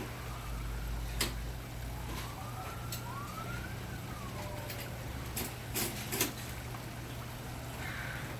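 A faint distant siren wailing, slowly rising and falling in pitch, over a steady low hum, with a few sharp clicks.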